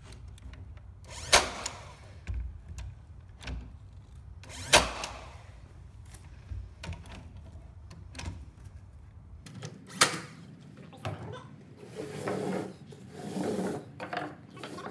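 Cordless nail gun driving finish nails into the corners of a glued wooden frame: three sharp shots, about a second and a half in, near five seconds and about ten seconds in. Softer knocks and handling noise come in between, with a stretch of scuffing near the end.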